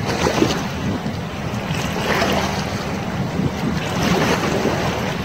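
Wind buffeting the microphone over choppy sea water, a steady rumbling rush with the slosh of small waves.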